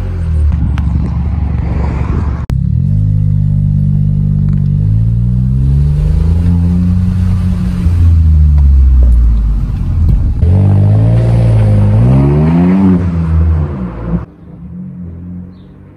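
Seat Ibiza FR 1.0 TSI three-cylinder turbo petrol engine, breathing through a straight-piped catback exhaust with no resonator or silencers, revving and accelerating loudly, its pitch climbing and falling several times. Near the end it drops away to a much quieter, more distant engine note.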